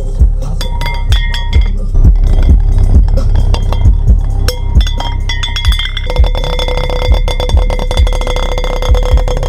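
Bass-heavy rap playing through a homemade portable speaker, with a glass plate resting on its 10-inch passive bass radiator clinking against it on the bass hits. About six seconds in, the plate starts a continuous fast rattle and rings steadily as the radiator drives it.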